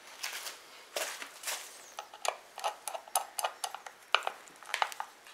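Screwdriver working the metal bearing retainer inside a pool pump motor's end bell, locking it behind the new ball bearing: an irregular string of small metal clicks and brief scrapes.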